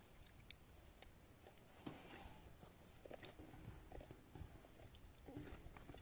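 Near silence with faint soft clicks and squelches of hands kneading dough in a plastic basin, and a couple of faint brief murmurs.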